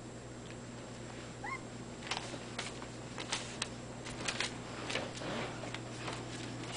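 Young Irish Terrier puppies' paws and claws scratching and crackling on paper sheets as they walk about, a run of irregular sharp clicks from about two seconds in. A single short rising puppy squeak comes just before.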